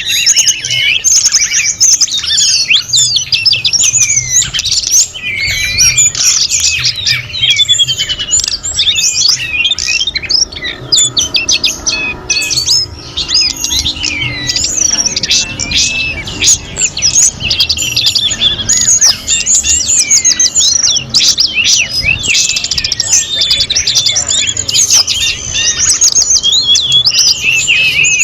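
A dense chorus of many small birds chirping and twittering at once, a constant overlapping tangle of quick high calls.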